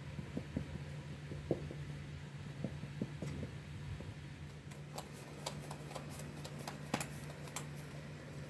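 A fork docking flattened bread dough on a flour-dusted metal tray: soft dull taps as the tines go into the dough, then sharper clicks from about five seconds in, over a steady low hum.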